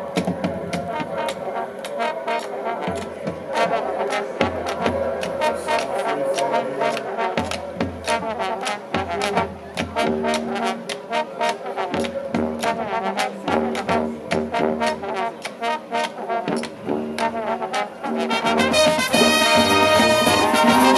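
High school marching band playing: a small brass group of trumpets, trombone and sousaphone over sharp percussion hits, then the fuller band comes in louder near the end.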